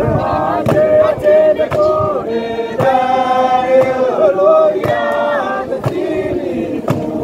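A group of voices singing a chant together in several parts, holding and shifting long notes, with sharp percussive strikes keeping the beat.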